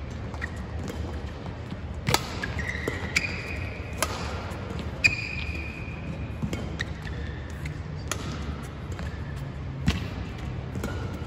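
Badminton rally: sharp racket-on-shuttlecock strikes at irregular intervals of roughly a second, mixed with short high squeaks of court shoes on the synthetic court mat, over a low hall hum.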